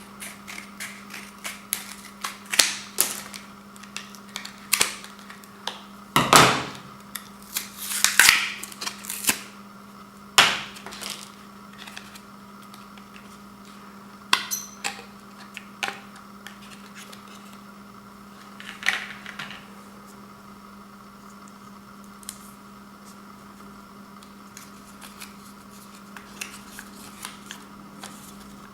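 Product packaging and the lamp being handled: irregular clicks, taps and rustling, busiest in the first third and sparse afterwards, over a steady background hum.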